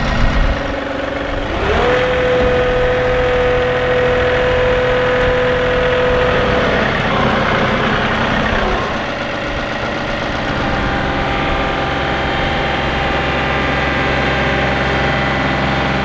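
John Deere compact tractor's diesel engine running under load as it moves a shed with its front loader. The engine note rises about two seconds in, holds high for several seconds, drops back, then runs steady.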